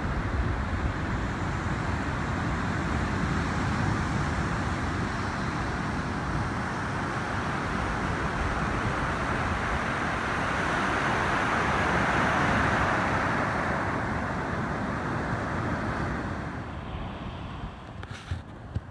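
Surf washing up a sandy beach: a steady rush that swells to its loudest about twelve seconds in and dies away near the end, with wind rumbling on the microphone underneath.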